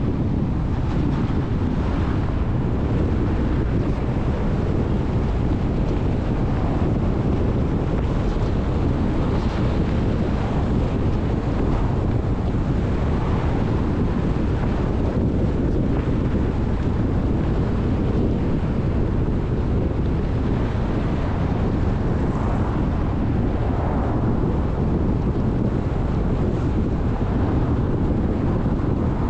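Steady wind rush on the microphone of a camera mounted outside a moving car, mixed with the car's road noise.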